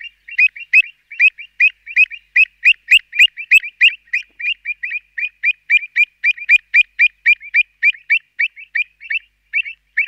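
Pied avocet calling: a rapid series of short, clipped notes at one steady pitch, about four or five a second, with the gaps widening near the end.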